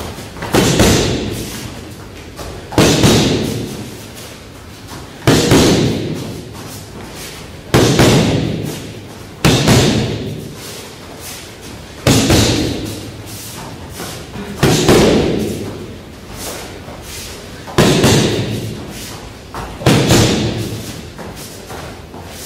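Boxing gloves striking focus mitts in jab–cross pairs: two quick slaps about every two and a half seconds, each followed by a ringing echo.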